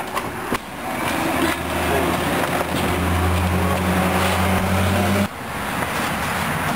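Outdoor street noise with a steady low engine hum from about a second and a half in, cutting off suddenly a little after five seconds.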